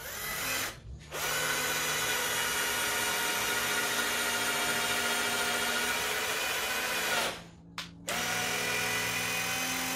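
Wesco WS2502K2 12V cordless drill/driver, with a four-pole brushed (carbon-brush) motor, driving a wood screw into a board without a pilot hole in low gear (speed 1). It gives a short burst, then runs steadily for about six seconds, stops briefly, and runs again for about three seconds.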